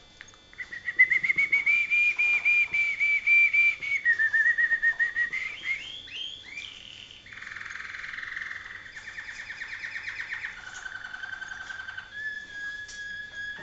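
Malinois (Waterslager) canary singing a run of varied phrases: a fast rolling trill, a lower trill with a short rising flourish, buzzy passages, then long held whistled notes near the end.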